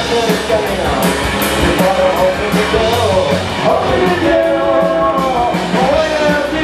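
Live rock band playing loud and fast, with drum kit and electric guitar, and a voice singing over it.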